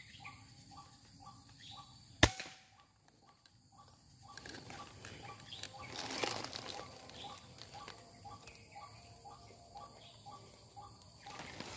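A single sharp shot from a suppressed PCP air rifle about two seconds in, followed a couple of seconds later by a spell of rustling, flapping noise. Faint, evenly repeating chirps go on underneath.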